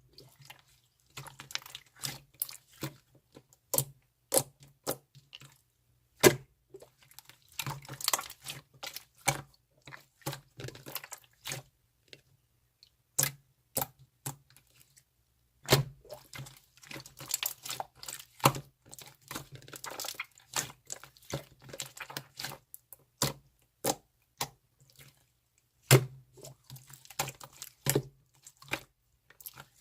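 Slime being squished and stretched by hand, making irregular sharp clicks and pops, with stretches of denser crackling.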